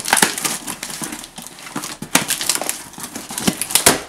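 Box packaging being handled and worked loose around a tightly packed model: irregular crinkling and crackling with sharp knocks, the loudest about two seconds in and near the end.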